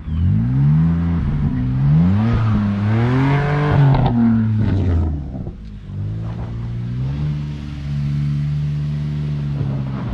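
F80 BMW M3's twin-turbo inline-six revving up and down several times, its pitch climbing and falling, then running at a steadier pitch from about six seconds in.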